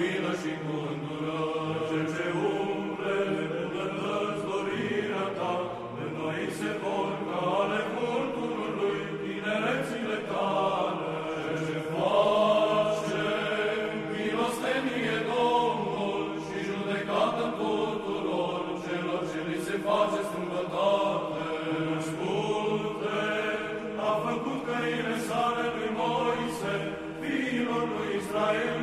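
Orthodox church chant: voices singing a melody over a steady held drone note.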